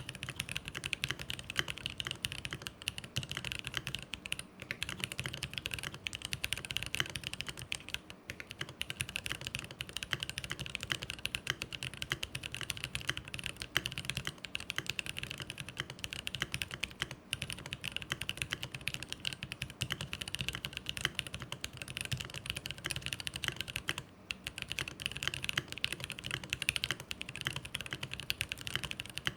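Fast continuous typing on a GMMK Pro mechanical keyboard with an aluminium plate, JWK T1 67 g tactile switches lubed with Krytox 205g0, and GMK Mizu clone keycaps. Dense clacking keystrokes with a few brief pauses.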